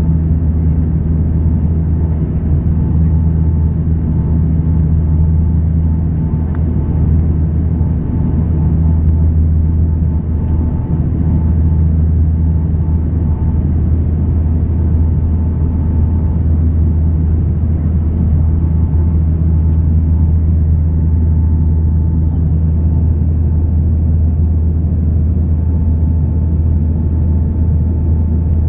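Bombardier Dash 8 Q300 turboprop engines and propellers heard from inside the cabin on approach: a loud, steady drone with a deep hum and a faint higher whine.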